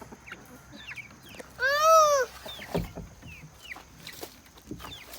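Chickens calling: one loud, drawn-out call that rises and falls in pitch about two seconds in, among faint short chirps.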